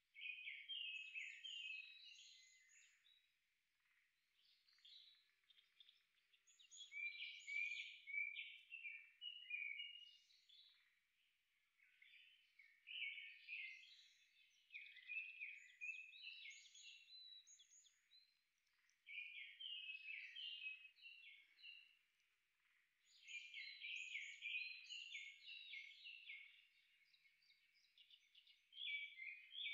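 A songbird singing: phrases of quick, varied, high notes a few seconds long, repeated about six times with short pauses between.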